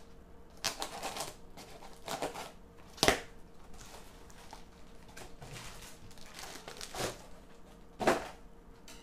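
Kraft-paper and plastic packaging crinkling and rustling as it is handled and opened. There are several short bursts of crackling, the sharpest about three seconds in and another about eight seconds in.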